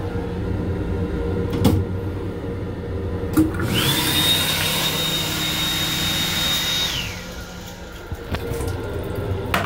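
The sink unit's hand dryer in an LIRR M7 railcar restroom starts with a rising whine, blows steadily for about three seconds, then winds down. Under it runs the steady rumble of the moving train, with a couple of knocks early on.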